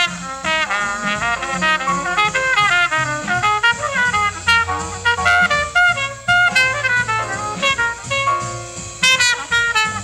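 Bebop small-group jazz: a fast trumpet solo of quick, running phrases over piano, walking bass and drums.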